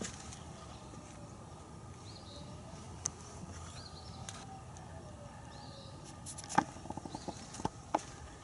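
Outdoor background with a few faint bird chirps, then a quick run of sharp clicks and taps about six to eight seconds in.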